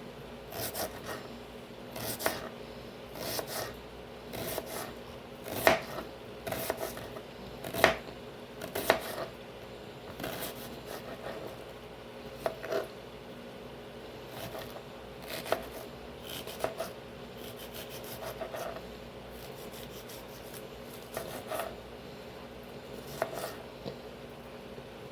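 Knife cutting onions on a cutting board: irregular sharp knocks of the blade on the board mixed with slicing and scraping strokes.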